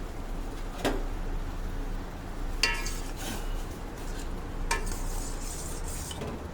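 A metal utensil clinking against a steel pot of simmering kadha about five times as it is stirred. One clink rings briefly. A steady low hum runs underneath.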